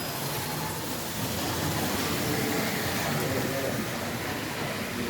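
Steady background chatter of many voices, with a constant hiss.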